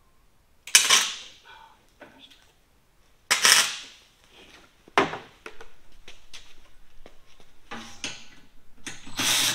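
Welder tacking a bolt onto the head of a stripped screw, to get a grip on it for removal: several short bursts of arc crackle, then a longer run of crackling near the end.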